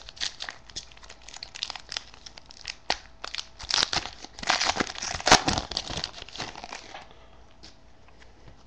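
A trading-card pack's wrapper is torn open and crinkled by hand, making a run of irregular crackles and rustles that die away about seven seconds in.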